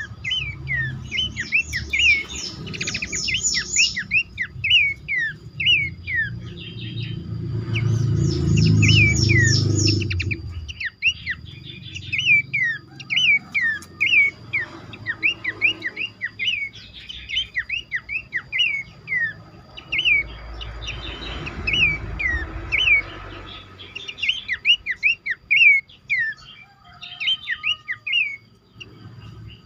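Several pelanduk semak babblers calling together in a dense chorus of short, sharp downward-slurred whistles. Two bursts of fast, high trills come in, about two and eight seconds in, and a low rumble sits under the second burst.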